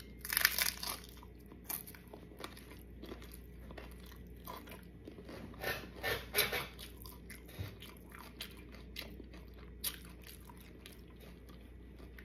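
Close-up eating sounds of tacos: crunchy bites into a crisp taco shell and chewing, in irregular clusters, loudest in the first second and again around six seconds in.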